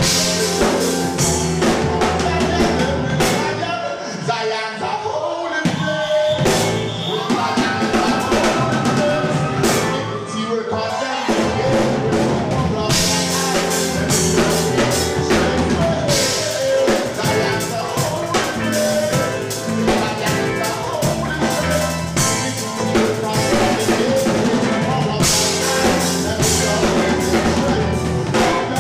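Live rock band playing an instrumental passage with a full drum kit; about four seconds in the bass drops out for several seconds while the drums and guitars carry on, then the full band comes back in.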